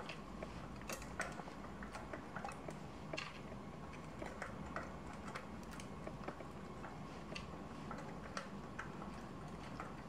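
Faint, irregular small metal clicks and ticks, several a second, as the bolts of a 160 mm six-bolt disc brake rotor are handled and turned on a bicycle's front hub, over a faint steady hum.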